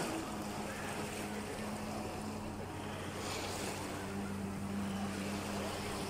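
Distant jet ski engine running at a steady drone, with the wash of sea water around it.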